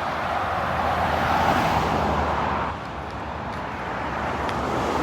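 Road traffic noise: tyres and engines of cars on a street, swelling over the first two seconds and dropping off sharply nearly three seconds in.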